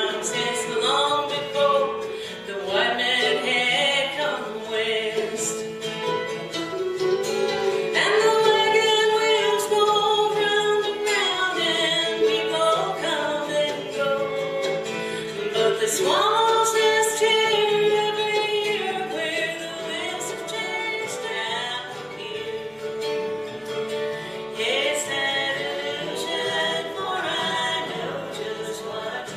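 Live music: a singer's notes that slide up and down and hold with vibrato, over steady instrumental accompaniment.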